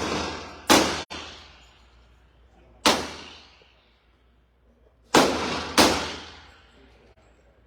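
Four gunshots at a shooting range, each a sharp crack that echoes away over about a second. The last two come about half a second apart.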